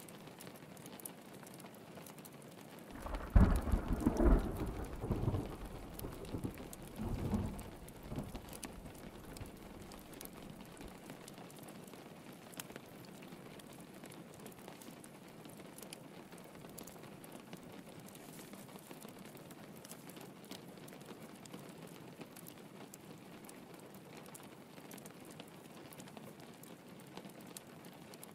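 Steady rain pattering on a window, with a deep roll of thunder starting about three seconds in that rumbles in several surges and fades away by about ten seconds.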